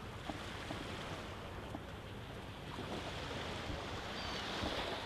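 Seaside ambience: small waves washing on a sandy beach with wind, a steady hiss of surf that swells slightly near the end.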